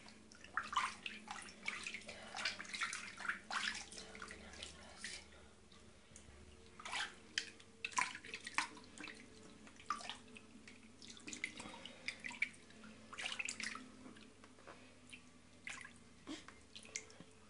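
Water splashing and dripping in a plastic baby bath as hands wash and move an infant in it: small irregular splashes and drips in loose clusters, with a quieter stretch about five seconds in.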